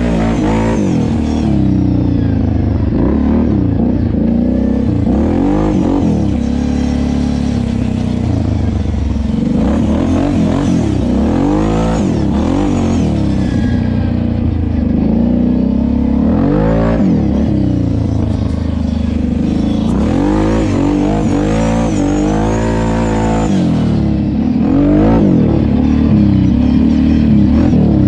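Kawasaki KFX 700 ATV's V-twin engine revving up and easing off again and again, its pitch rising and falling every second or two.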